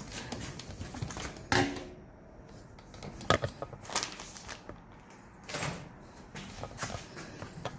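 Irregular knocks and clicks of things being handled, six or so scattered hits, one about one and a half seconds in with a brief metallic ring.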